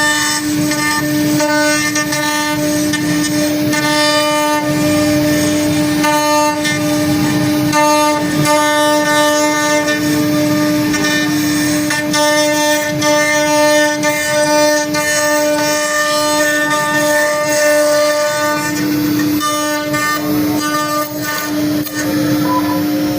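CNC wood router running: the spindle holds a steady high whine, while higher motor tones switch on and off every second or two as the axes move.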